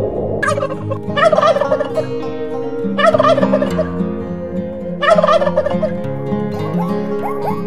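Helmeted guineafowl calling: several loud bursts of harsh, rapid cackling, a second or two apart. Background music runs underneath.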